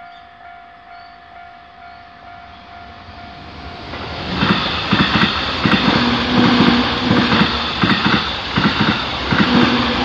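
Japanese level-crossing warning bell ringing in a steady repeated pulse. From about four seconds in, an electric commuter train passes close by, its wheels clacking over the rail joints in a quick rhythm over a steady low hum.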